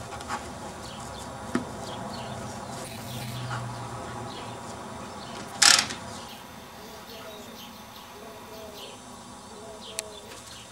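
Backyard outdoor sound picked up by a 1990s Mini DV camcorder's built-in microphone: a steady background with faint chirps, a couple of small clicks, and one short loud rush of noise a little past halfway.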